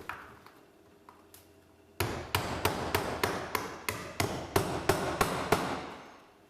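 Hammer driving a nail through a corrugated Onduline bitumen roof sheet to fix it in place. A few light taps come first, then about a dozen sharp, even strikes, roughly three a second.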